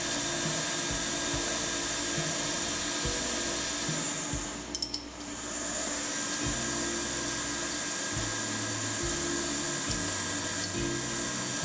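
CNC machining: a steady high-pitched whine and hiss of metal being cut, with background music's bass underneath. The sound dips briefly, with a few clicks, about five seconds in.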